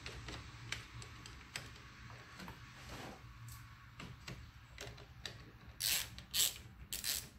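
Hand ratchet tightening the cable nut on a car's positive battery terminal: scattered light clicks and taps, then four louder bursts of ratchet clicking about half a second apart near the end.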